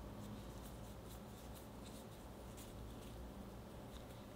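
Faint soft ticks and rustles of fingers pinching and smoothing sticky glutinous-rice (mochi) dough around a ball of filling, over a low steady hum.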